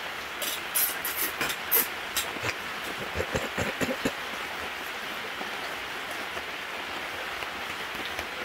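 Steady rain falling on a camping tarp and the ground around it, with a few sharp taps in the first two seconds and short low knocks around three to four seconds in.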